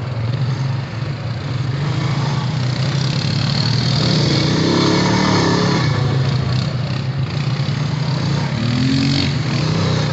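Honda Rancher ATV's single-cylinder engine running steadily under way on a dirt trail, its pitch shifting a little with the throttle.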